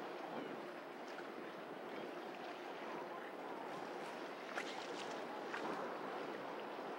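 Steady wash of open water, with a few faint short clicks.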